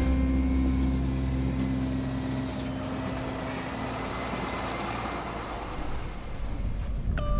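Iveco Eurocargo 4x4 truck's diesel engine running at a steady note as the truck drives along a sand track, followed by a rushing noise that swells in the middle and fades.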